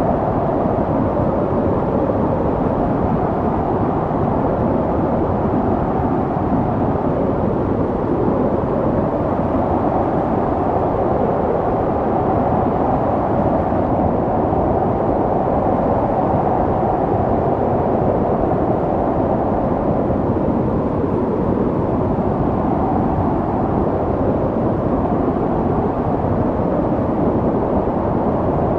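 Snowstorm wind blowing steadily: a dense, low rushing noise that holds level throughout, with slow swells and no distinct gusts or other events.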